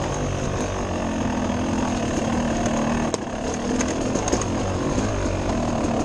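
Dirt bike engine running at a fairly steady, low pitch, with frequent short knocks and clatter as the bike rides over rocks and roots.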